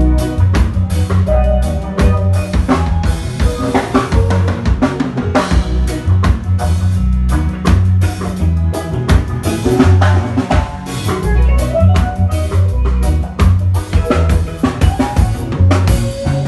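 Band playing a reggae song: a drum kit with snare rimshots and bass drum keeps a steady beat under a heavy bass line and melodic parts.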